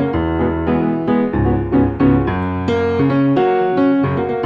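Grand piano played in a jazz improvisation: chords struck in quick succession over held low bass notes.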